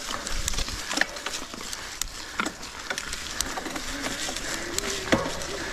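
Mountain bike rolling over a rough trail: tyre noise with irregular rattling clicks and knocks from the bike, and a faint steady hum in the second half.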